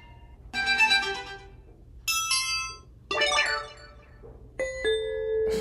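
Asus ZenFone 9's loudspeakers playing four short notification chimes one after another, each a brief tune of a few notes in a different sound, as the notification tones are previewed one by one.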